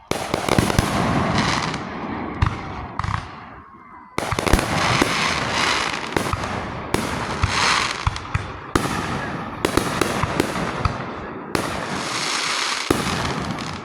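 Fireworks going off in a rapid, dense barrage of sharp bangs and crackling. There is a brief lull about four seconds in.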